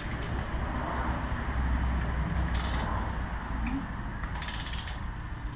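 Hand ratchet slowly turning the crankshaft of a 5.3-litre LS V8 on an engine stand while the engine is pressure-primed with oil; the pawl clicks in two short runs, over a low steady hum.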